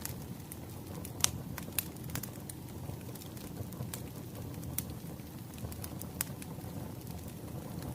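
Wood fire crackling: a steady low rumble with scattered sharp pops and snaps, the loudest about a second in.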